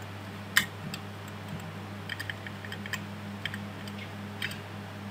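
A series of clicks and quick ticks from computer input while navigating slides: one sharp loud click about half a second in, then scattered lighter ticks, some in quick little clusters. A steady low electrical hum runs underneath.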